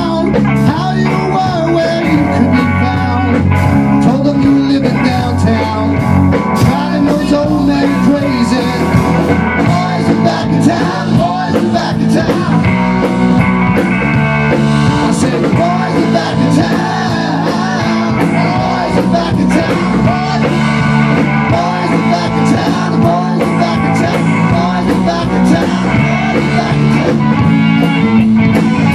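Rock band playing live: electric guitar, electric bass and drum kit.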